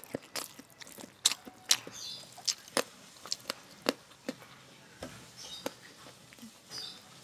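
Close-miked mukbang eating sounds from a person chewing a mouthful of rice eaten by hand: irregular sharp wet clicks and lip smacks, with fingers working the rice and sambal on the plate.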